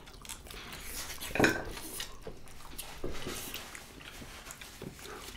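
Eating at the table: scattered light clicks and clinks of dishes and cutlery as food is picked up by hand from plates, with one louder clink about a second and a half in.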